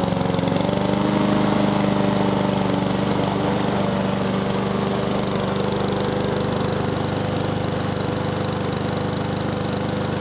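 Honda GCV160 four-stroke overhead-cam engine on a Husqvarna 21-inch push mower, running just after a cold pull-start. Its speed settles in the first second, then it runs steadily.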